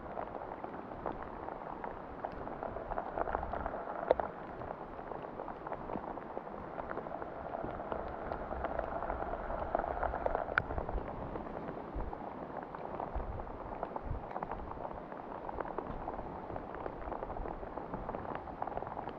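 Steady rain falling, with a constant hiss and many small drop ticks.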